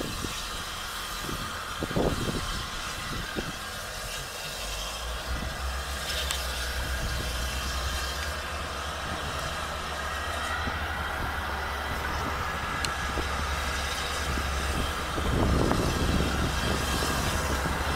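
Peckett 0-4-0 steam locomotive running slowly at a distance, a steady low rumble with a couple of brief low thumps.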